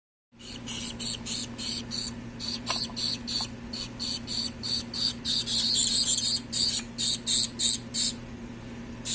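Baby birds cheeping: a rapid run of short, high-pitched chirps, several a second, loudest a little past the middle, over a steady low hum.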